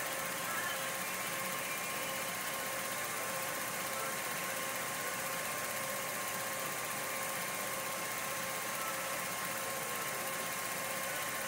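Film projector running: a steady mechanical whir and hiss with two faint steady tones above it.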